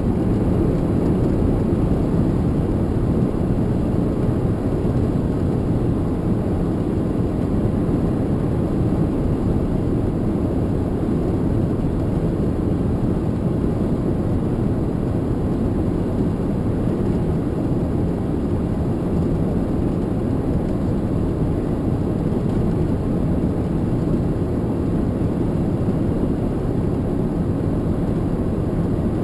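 Steady low rumble of a lorry's engine and road noise heard inside the cab while driving, unbroken throughout.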